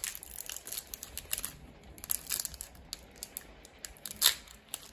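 Foil booster-pack wrapper crinkling and crackling in the fingers as it is worked open, with a louder crackle about four seconds in.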